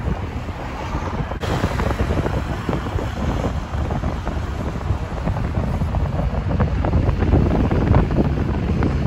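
Wind buffeting the microphone: an uneven low rumble with no voices.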